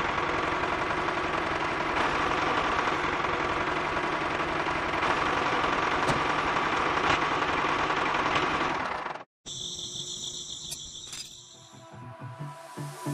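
A miniature model tractor's small motor and drivetrain running with a rapid, dense clatter. It cuts off abruptly about nine seconds in, and a quieter, steadier sound follows.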